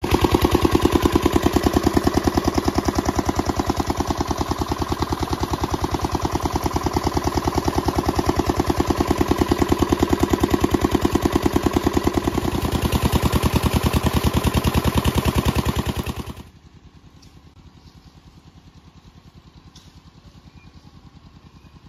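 A small engine running with a fast, even beat. About three-quarters of the way through it suddenly drops to a much quieter run that carries on.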